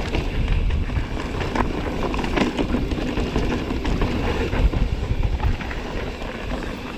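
Mountain bike rolling along a dirt trail: a steady low rumble of tyres over the ground, with scattered clicks and rattles from the bike.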